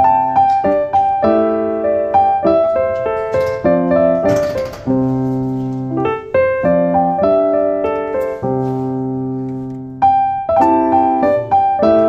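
Background solo piano music: notes and chords struck one after another, each left to ring and fade.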